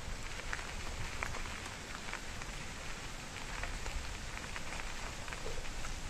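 Mountain bike tyres rolling fast over a loose gravel road: a steady crunching hiss with many small clicks of stones, over a rough low rumble.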